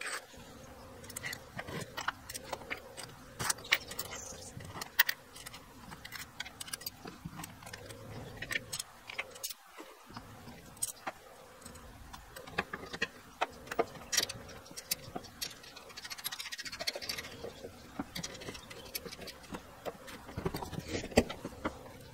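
Irregular clicks, clinks and light knocks as rubber roller wheels and copper spacer tubes are slid onto a lawnmower's roller shaft and set down on a rubber mat.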